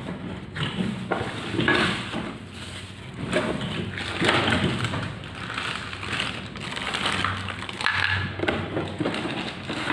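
Blender's packaging being opened and handled by hand: irregular rustling and crinkling of box and wrapping.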